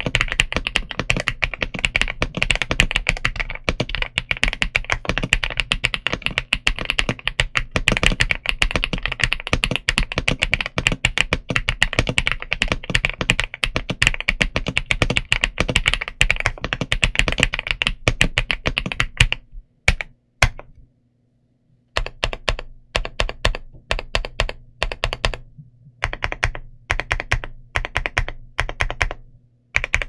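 Kzzi K75 Lite mechanical keyboard with Rain linear switches and MDA-profile PBT keycaps, typed on fast and continuously. After a brief pause about two-thirds of the way through, keys are pressed in short separate runs with gaps between.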